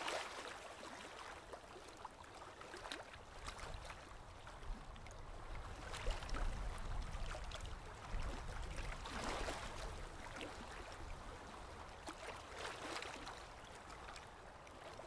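Faint steady rushing ambient noise with several brief swells and a low rumble about six to nine seconds in.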